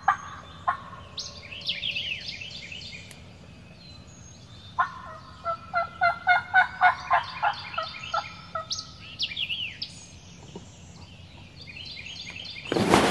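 Turkey yelping: a run of about a dozen evenly spaced yelps, about three a second, through the middle. Songbirds sing short descending slurred notes around it, and a loud rustle starts near the end.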